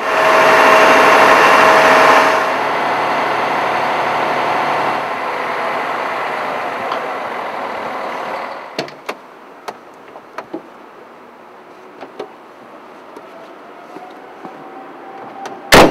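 Hook-lift lorry's engine and hydraulic arm running under load as it lowers a 20-foot ISO container module to the ground, with a steady whine that is loudest for the first two seconds, then runs lower and dies away about eight seconds in. Light clicks and knocks follow, and a single sharp bang comes near the end.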